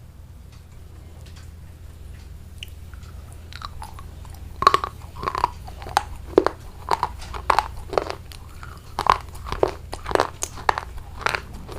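Close-miked crunchy bites and chewing by a person eating. After a quiet start with a few faint clicks, sharp crunches begin about four and a half seconds in and come about twice a second, over a steady low hum.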